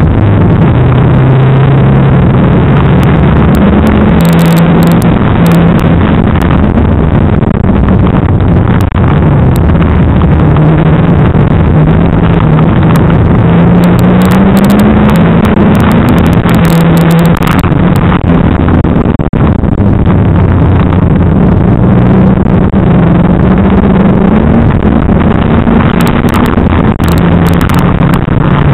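Banger racing car's engine heard from inside the cabin, running loud under racing load, its pitch rising and falling as the car accelerates and slows around the track.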